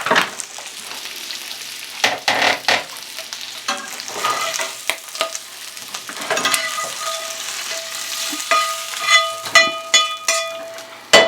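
Andouille sausage sizzling in a hot carbon steel skillet, with the clicks and scrapes of a utensil working the pan as the pieces are lifted out. A steady tone runs through the last few seconds.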